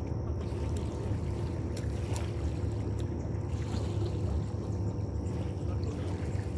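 A boat engine running steadily out of view: a constant low rumble with a faint steady hum over it.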